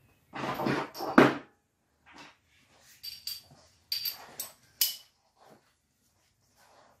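Rummaging through metal sockets and tools while searching for a socket: a loud rattling clatter near the start, then scattered metallic clinks.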